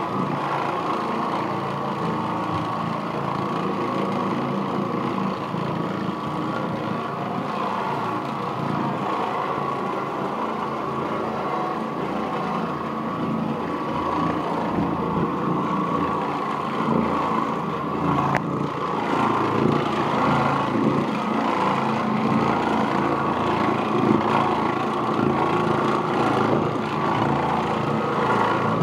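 Oreck Orbiter orbital floor machine running steadily, its bonnet pad scrubbing over carpet with a constant motor hum. A single sharp click sounds about two-thirds of the way through.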